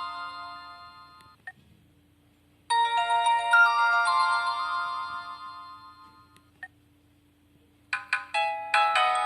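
Alcatel OT-282 mobile phone ringtones playing one after another. One melody fades out, there is a short click and a pause, a second melody of high electronic notes starts about three seconds in and fades away, another click follows, and a third, busier melody begins near the end.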